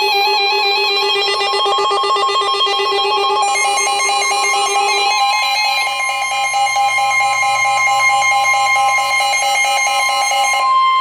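Synthesized emergency-alert tones warbling in a rapid repeating pattern, the lowest tone dropping out about five seconds in. Near the end a steady single tone takes over.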